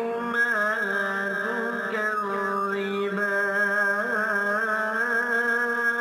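A man chanting Quran recitation in long, drawn-out melodic notes whose pitch wavers and bends in ornaments.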